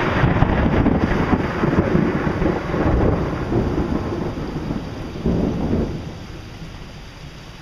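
Thunder rumbling over rain, with one more swell about five seconds in before the roll dies away, leaving the rain hissing.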